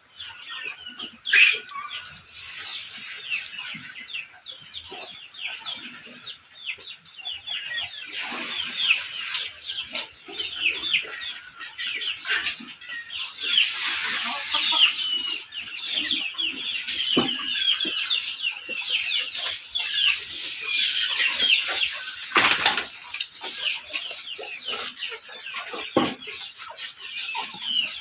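Chickens peeping and clucking: a dense, continuous run of short, high, downward-sliding chirps, with a few sharp knocks.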